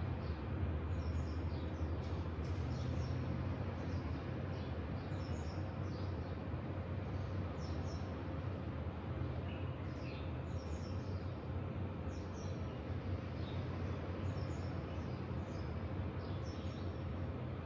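Small birds chirping in short, high calls every second or two over a steady low rumble of outdoor background noise.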